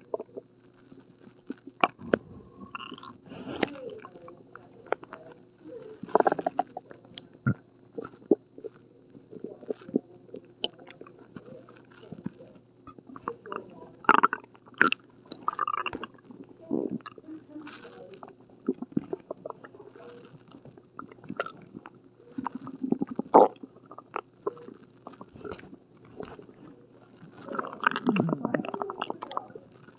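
Stomach growling and gurgling from an upset stomach: irregular short rumbles, squelches and clicks, loudest about 14, 23 and 28 seconds in, the last a longer wavering growl.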